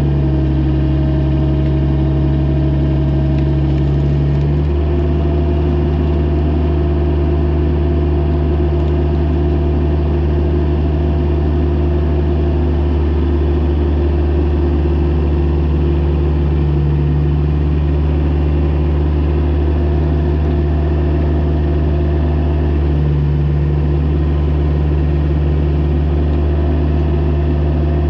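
Mini excavator's diesel engine running steadily, its note shifting slightly a few times.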